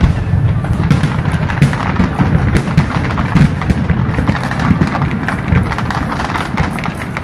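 Aerial fireworks bursting in a dense run of bangs and crackles over a steady low rumble.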